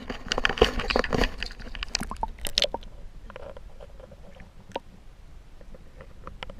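Water sloshing and clicking heard through a camera held underwater: scattered crackles and knocks over a low rumble, busiest in the first couple of seconds and sparser after.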